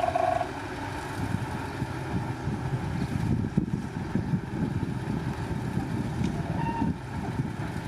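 Heavy earthmoving machinery's diesel engines running steadily, a low rumble.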